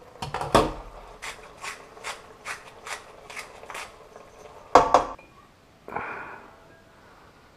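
Wooden pepper mill being ground over a pot, a steady run of short rasping twists about two and a half a second, after a clatter of the metal pot lid at the start. Two sharp knocks come about five seconds in.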